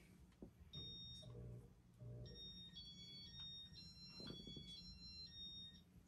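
A Casablanca Stealth ceiling fan's electronic control beeping faintly: one high beep, then a quick run of beeps at changing pitches like a short tune.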